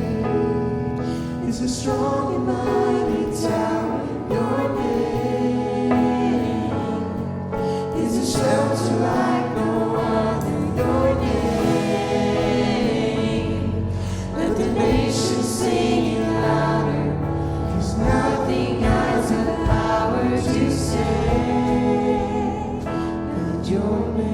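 A church worship band playing a contemporary worship song while a group of voices sings along.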